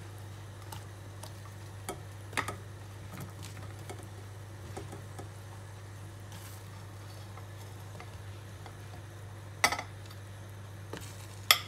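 Button mushrooms dropped one by one from a plate into a steel pot of water and squash chunks, making scattered small knocks and splashes, with two sharper knocks about ten seconds in and near the end. A steady low hum runs underneath.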